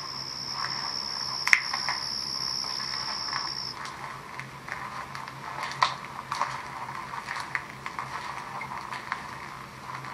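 Steady high-pitched insect trill that cuts off abruptly about four seconds in. Scattered sharp clicks and rustling run over a low steady hum, with the loudest clicks about a second and a half in and near six seconds.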